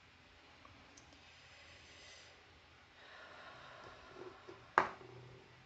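Handling of a small metal watercolour paint tube: faint rustling and light ticks, then a single sharp click near the end as the tube is put down among the other tubes.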